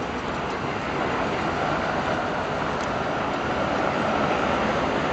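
Boeing 787's turbofan engines running as it taxis, a steady broad rumble that grows a little louder about a second in, with a faint steady whine above it.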